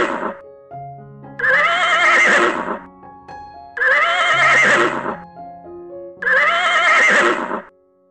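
Horse whinnying: three long neighs with a shaking, wavering pitch, about two and a half seconds apart, after the tail of a fourth right at the start, with soft background music in between.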